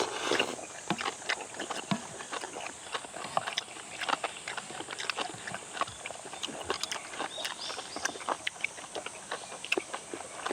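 People eating at close range: chewing and lip-smacking with irregular sharp clicks and clinks of spoons or chopsticks against bowls.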